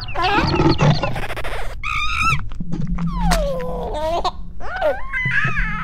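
A baby's wordless vocal sounds: a run of short giggles, coos and wavering whimpers that glide up and down in pitch, with a low steady hum underneath in the second half.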